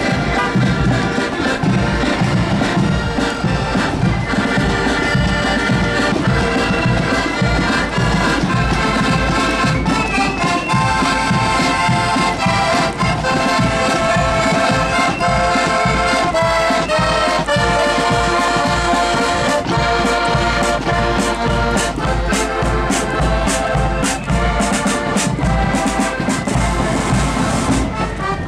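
Marching accordion band playing a tune in unison on piano accordions, the reeds sounding in long held chords, with a bass drum and side drums keeping a steady marching beat.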